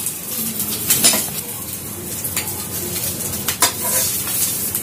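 Oiled egg-and-vegetable paratha sizzling steadily on a flat iron tawa, with about three sharp clicks of a spatula against the pan.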